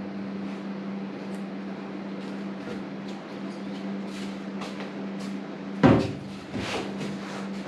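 A steady low hum with faint scrapes and taps, and one sharp knock about six seconds in, with a smaller knock just after.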